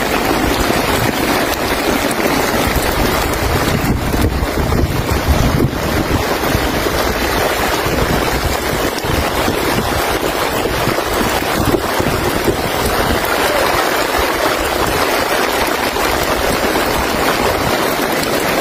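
Heavy rainstorm: a steady rush of rain and wind, with gusts buffeting the phone's microphone in a low rumble.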